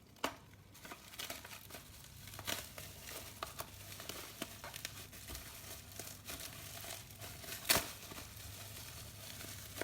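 Bubble wrap and plastic packaging crinkling and rustling as it is cut open with a cutter and pulled off, with many small sharp clicks and one louder snap near the end.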